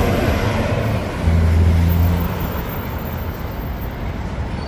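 Road traffic noise, with a vehicle's low engine hum swelling about a second in and then fading back into the steady street noise.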